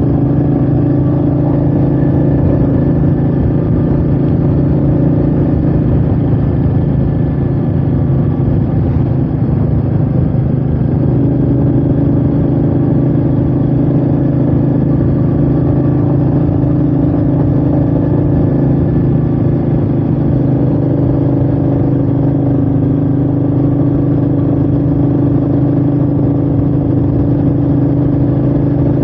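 Royal Enfield Meteor 350's single-cylinder engine running steadily under way, with wind noise. The engine note steps up slightly about eleven seconds in.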